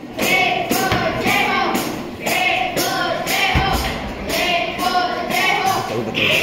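A group of voices singing in a steady, repeating rhythm, with a dull thump about three and a half seconds in.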